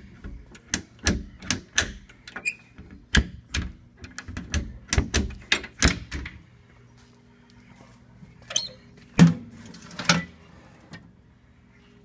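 Irregular knocks and clunks, a quick run of them through the first six seconds and a few more a few seconds later, over a faint low steady hum.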